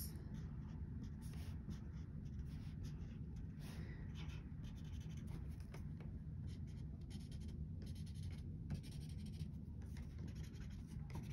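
Felt-tip marker dabbing on card paper: a faint run of many short, irregular taps and scratches as small raindrop dots are drawn, over a steady low hum.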